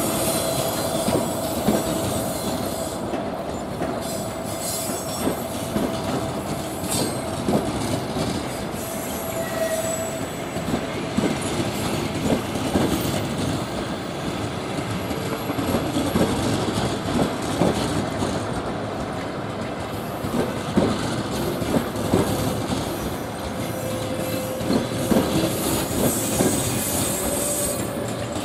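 Passenger coaches of a departing train rolling past at low speed, their wheels knocking irregularly over rail joints, with a thin wheel squeal that comes and goes.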